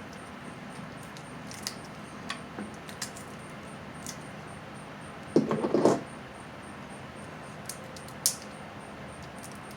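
Snow crab leg shells being cracked and broken open by hand: scattered small clicks, a loud cluster of crackling snaps about five and a half seconds in, and one sharp snap near the end.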